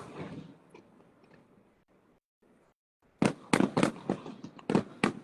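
Fireworks going off: the echo of a loud bang fading away at the start, then a rapid string of about a dozen sharp cracks from about three seconds in.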